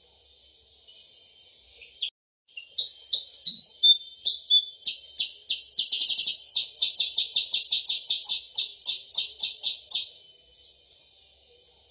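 Recorded bird-lure song for kutilang sutra (a bulbul): a fast run of sharp, repeated chirps, about three to four a second, lasting some seven seconds. It starts after a brief dropout about two seconds in and plays over a steady high hiss.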